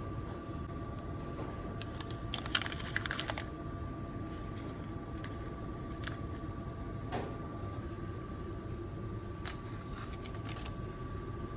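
Necta Kalea automatic coffee vending machine running with a steady hum and a steady high whine, with a quick run of sharp clicks about two seconds in and a few single clicks later.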